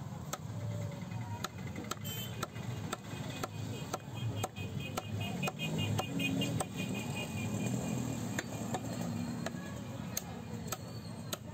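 Large knife chopping a trevally fillet into chunks, its blade knocking on a wooden chopping block about once or twice a second, over a steady low rumble.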